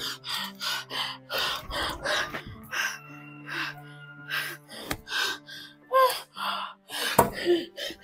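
A woman gasping and panting hard, about two to three rapid breaths a second, with a couple of short moans near the end, in acted distress. Background music with a held low note runs underneath.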